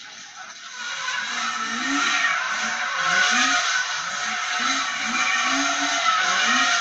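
Drift car sliding, its tyres squealing while the engine revs rise and fall again and again as the throttle is worked; it grows louder about a second in.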